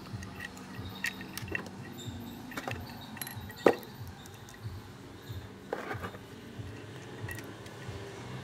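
Scattered light metal clinks and taps of scooter engine parts and tools being handled while the cylinder head cover is fitted, with one sharper knock about three and a half seconds in, over a faint steady hum.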